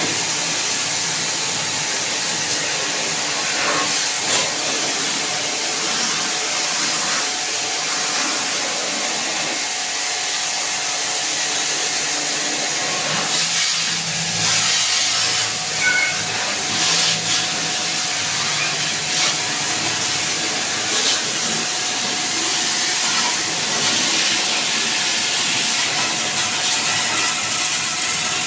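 Steady loud hissing of a pressure jet servicing an air conditioner's outdoor unit, with brief louder surges now and then.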